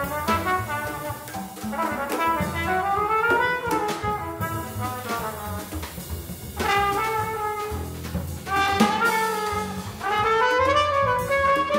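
Jazz quartet playing: trumpet lines with tenor saxophone over walking double bass and drum kit with cymbals. The horn lines slide up and down in pitch, with swells of loudness about two-thirds of the way in and again near the end.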